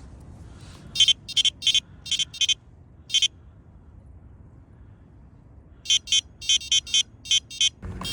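Electronic carp bite alarm sounding in irregular bursts of short, high beeps, about seven at a time, with a pause of a couple of seconds between the bursts: line is being pulled off a rod as a carp takes the bait. A steady low background hiss runs underneath.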